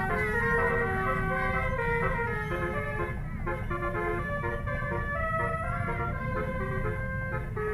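Multi-tone basuri (telolet) horn on a bus playing a melody of short stepped notes, over a steady low rumble from the bus.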